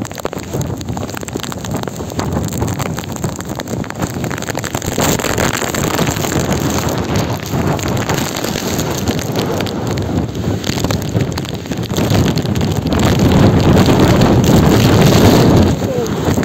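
Typhoon-force wind blasting across a phone's microphone in heavy gusts, growing louder about twelve seconds in.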